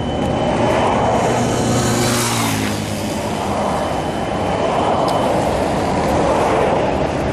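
Steady outdoor rumble with a vehicle passing about two seconds in, its hum dropping in pitch as it goes by, then another swell of road noise near the end.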